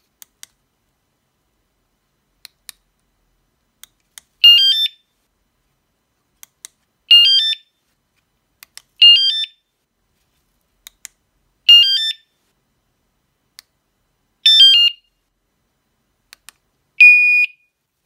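Remote fob buttons clicking, each press answered by a short electronic chirp of a few quick stepped notes from a bicycle vibration alarm, confirming the remote's command; this repeats five times. The sixth answer is a single steady beep of about half a second.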